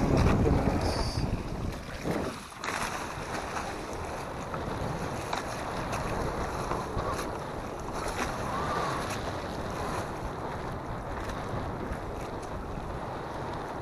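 Wind buffeting the microphone over the wash of open-sea waves against a wooden outrigger fishing boat. The sound is a steady rush, loudest in the first second.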